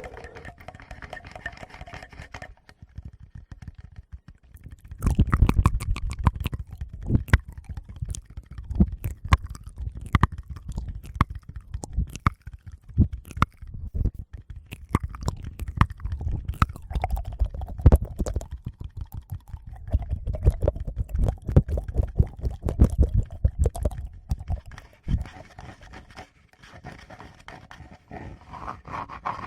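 Fingers touching and tapping a Tascam recorder's microphones up close, giving dense clicks and low rumbling thumps, mixed with mouth sounds. The touching is quieter for the first few seconds and again near the end.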